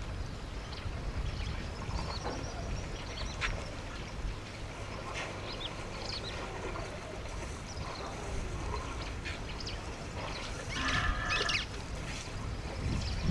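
Birds calling: scattered short chirps and whistles, then a louder, harsher call lasting just under a second about eleven seconds in. A steady low rumble of wind on the microphone runs underneath.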